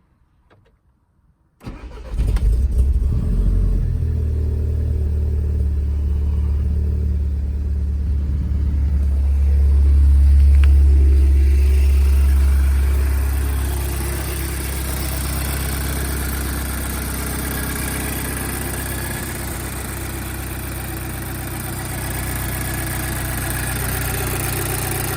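VW Scirocco R's EA113 2.0 TFSI turbocharged four-cylinder petrol engine, fitted with a runner flap delete inlet manifold and a K04-64 turbo, cold-started: it cranks and catches about a second and a half in, then runs at a steady high cold idle that rises a little and eases back down.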